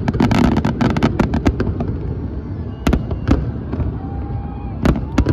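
Fireworks going off: a dense run of sharp crackles over a low rumble in the first second and a half, then scattered single bangs.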